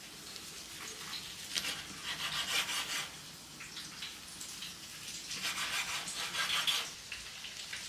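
Chef's knife sawing through a kimbap roll on a wooden cutting board: two slow slices, each a second or two of crisp rasping as the blade cuts through the dried seaweed wrap and rice.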